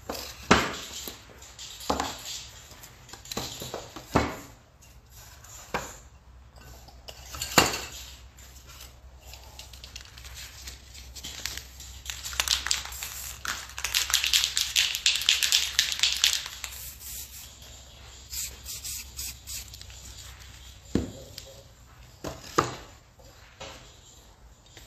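Clinks and knocks of spray paint cans and tools being handled on the work table, a dozen or so separate sharp strikes, with a crackling hiss lasting a few seconds about halfway through.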